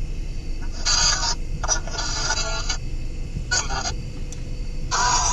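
Ghost box (spirit box) sweeping through radio frequencies: four short bursts of chopped static and radio fragments, the second and last longest, over the steady low rumble of a car cabin on the road.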